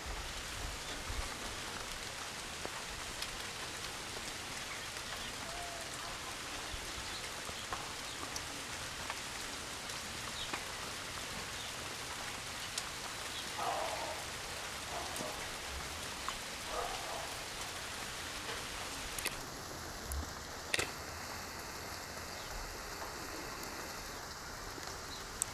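Steady rain falling on a pond's surface: an even hiss with many scattered drop ticks.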